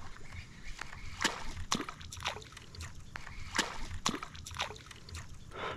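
Water splashing and sloshing close by, in a string of short swishes that come in pairs.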